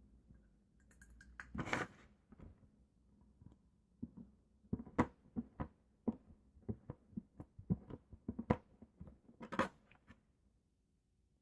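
Homemade slime being squeezed and poked by hand, giving a run of small irregular clicks and pops that cuts off about ten seconds in.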